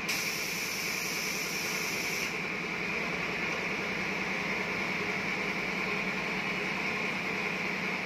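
Steady workshop background noise, with a high, airy hiss for about the first two seconds that then cuts off.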